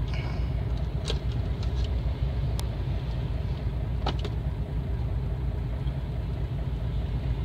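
Steady low rumble of a car's engine and running gear heard from inside the cabin in slow traffic, with a few short clicks.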